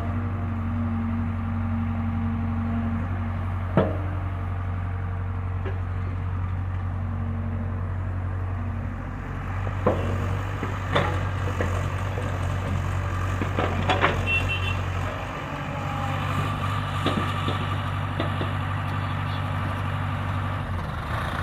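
Excavator's diesel engine running steadily at work, with a few sharp metallic clanks from the bucket and machine.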